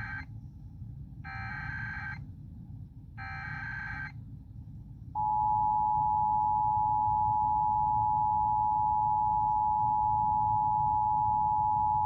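Emergency Alert System alert tones: three short bursts of SAME header data, each about a second long and a second apart, then from about five seconds in the steady two-tone EAS attention signal, loud and unbroken. This is the opening of a required monthly test alert.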